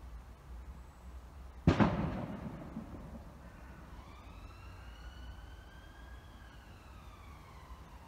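A sharp bang about two seconds in that dies away over about a second, then a siren wailing, its pitch rising slowly and then falling.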